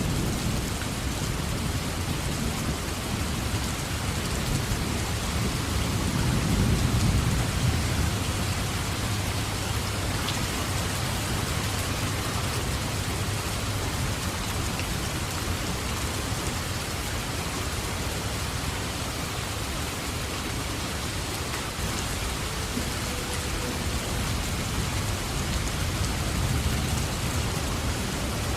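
Steady rain falling, with low rolling thunder rumbling underneath that swells about a quarter of the way in and again near the end.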